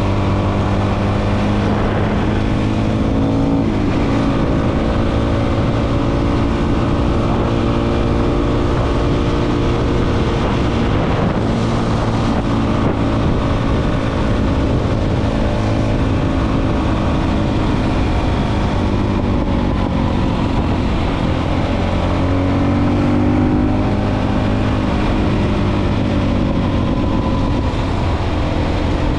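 Motorcycle engine running steadily on the move, its note drifting up and down a little.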